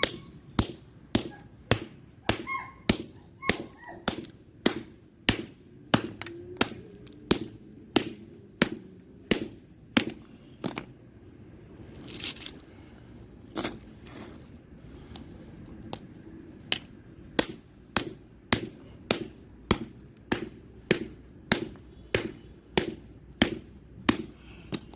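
Hammer striking a padlock again and again, steady blows a little under two a second with a short pause in the middle. The lock is holding up under the blows.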